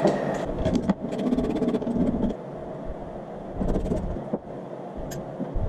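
Handling noises from parts being worked by hand: scattered clicks and knocks, with a quick run of ticks about a second in.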